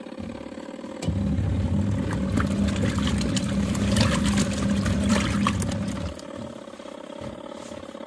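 Portable mini washing machine's wash motor churning a tub of wet clothes in soapy water. The motor starts suddenly about a second in, runs for about five seconds with splashing and clatter, then stops.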